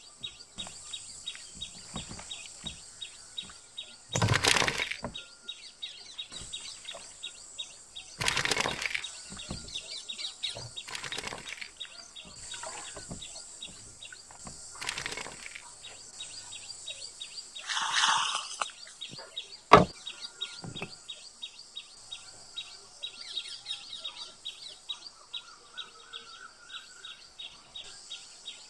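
Garden ambience: birds chirping over a steady high insect buzz with fast ticking. A few louder noisy bursts of about a second each and one sharp click come from handling at the table.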